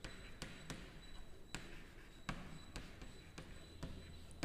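Chalk writing on a blackboard: irregular sharp taps, about two a second, as the chalk strikes the board, with faint scratching between them.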